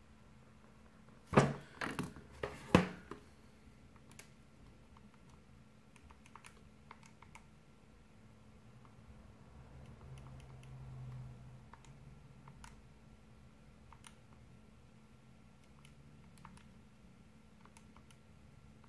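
A few sharp knocks and a clatter about a second in, then scattered soft clicks of keys being pressed one at a time.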